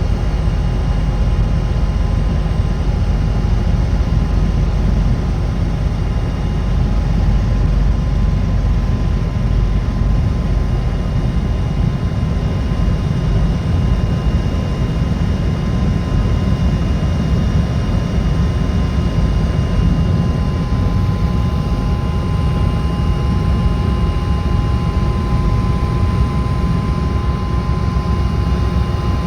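Helicopter running steadily as it comes in to land on an offshore drilling rig: a loud, even rumble with a thin, high whine over it, joined by a second whine about two-thirds of the way through.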